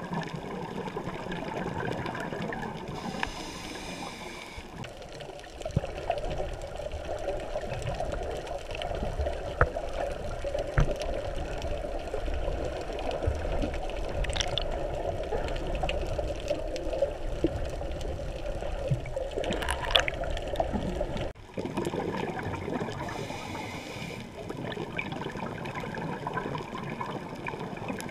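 Underwater ambience heard through a GoPro's waterproof housing: muffled gurgling and trickling water noise with scattered faint clicks. A low rumble sets in about six seconds in and cuts off abruptly about twenty-one seconds in.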